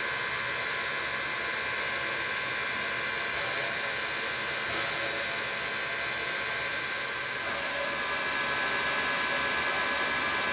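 Pennsylvania Railroad B4a 0-6-0 steam switcher standing at rest, giving off a steady hiss with a high, even whine over it, swelling slightly near the end.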